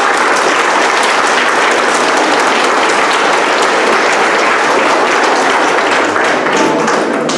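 A church congregation applauding: dense, steady clapping from many hands that stops abruptly near the end.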